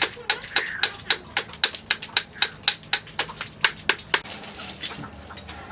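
Hand hammer striking the steel cleaver blank on an anvil, quick even blows at about four a second with a metallic ring, stopping about four seconds in, followed by a short soft hiss.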